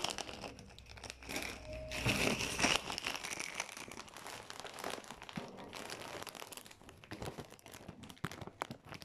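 Crinkling of plastic snack packaging rubbing against the phone as the drinks and chips are carried, with scattered handling clicks; loudest about two to three seconds in, then softer and more broken.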